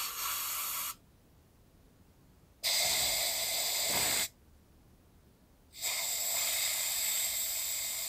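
Compressed air hissing from an air blow gun in three separate bursts, each a second or two long. The air is being fired into the ports of a cylinder head with water pooled in the combustion chamber, a test for leaks between the valves and their seats.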